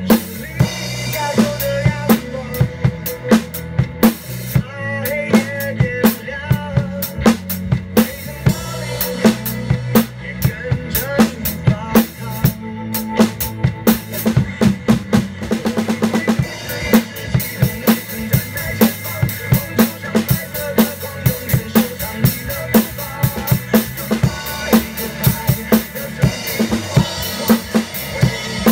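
Acoustic drum kit played in a steady groove: bass drum, snare and Zildjian cymbals, hits coming several times a second, with a denser run of strokes about sixteen seconds in and brighter cymbal wash near the end.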